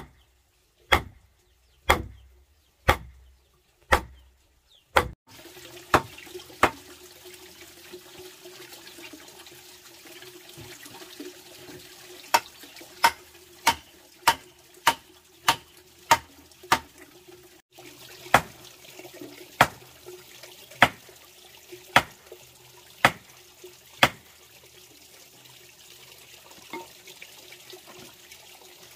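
Hammer blows driving a wooden stake into packed dirt, about one a second. After a break, another long run of sharp blows at about one to two a second.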